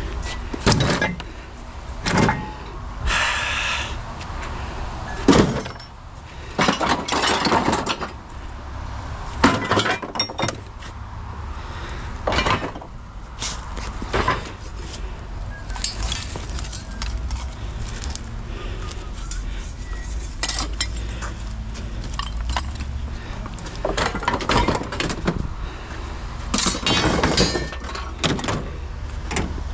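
Scrap metal being loaded into a pickup bed: a string of irregular clanks and crashes, some single sharp hits and some longer rattling clatters, over a low steady rumble.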